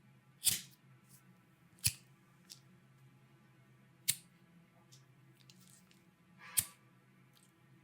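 A few sharp clicks and taps of small hard objects being handled: four louder ones spaced a second or two apart, the last one swelling briefly before its click, with fainter ticks in between.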